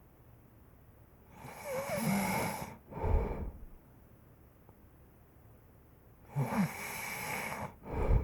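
A person snoring: two breaths about five seconds apart, each a long rasping snore followed by a short, low puff.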